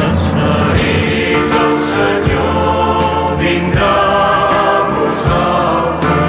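A choir singing with instrumental accompaniment, sustained notes over a steady beat.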